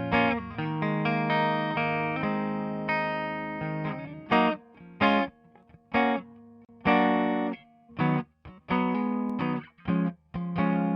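Electric guitar run through Slate Digital's Virtual Tape Machines tape-emulation plugin, with a little distortion. Ringing chords for the first few seconds, then short, clipped chord stabs with brief gaps between them.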